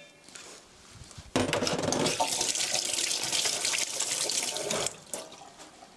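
Water running from a tap, switched on about a second and a half in and shut off sharply near five seconds.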